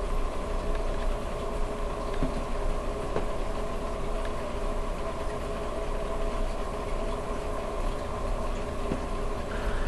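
A reef aquarium's pumps and water circulation running: a steady mechanical hum with a few held tones over a wash of water noise and a low rumble.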